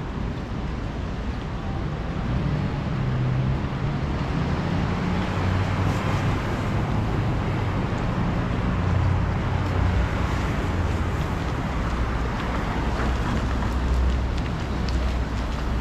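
City street traffic: vehicles passing with a steady low engine rumble and road noise that swells about two seconds in and holds.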